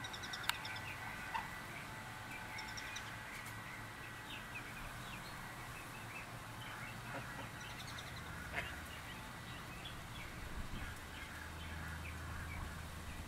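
Ducklings peeping as they feed: many short, high peeps scattered throughout, with a few quick runs of higher notes.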